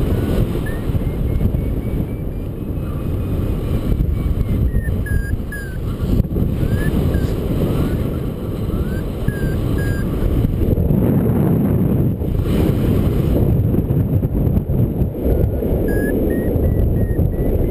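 Wind rushing over the microphone in paraglider flight, with a paragliding variometer beeping over it: scattered short chirps at changing pitch in the middle, and a quick run of evenly spaced beeps near the end, the vario's signal that the glider is climbing in lift.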